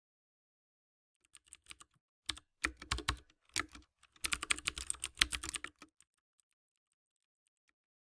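Typing on a computer keyboard: a quick run of key clicks starting about a second in, with a short pause midway, ending about six seconds in.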